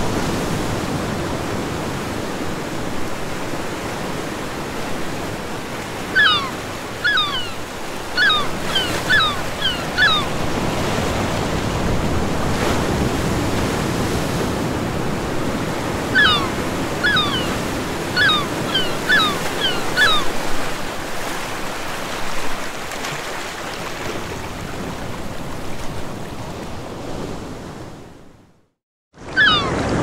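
Steady ocean surf with two runs of short, falling calls, about one a second. The surf fades out near the end and starts again.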